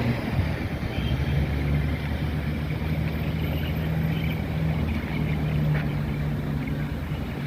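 A steady low hum, like a distant engine or machine drone, over a faint rush of wind, with a few faint high chirps.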